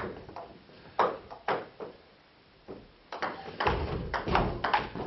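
Table tennis ball clicking off the bats and the table in a rally, sharp ticks a fraction of a second apart. There is a short lull about two seconds in, then quicker strokes with low thuds beneath them near the end.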